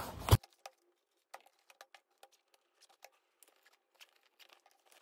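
Faint, scattered rustles and light clicks of things being handled and put away on a desk while it is tidied, a cloth bag among them.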